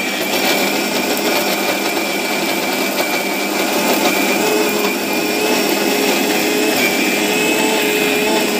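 Electric mixer grinder (mixie) running at full speed, its blades grinding chutney in the jar with the lid held down: a steady whir with a high, even whine.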